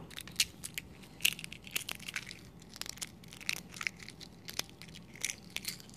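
Shell of a hard-boiled farm-fresh egg crackling as it is cracked and peeled by hand: a run of small, irregular crunches and crackles.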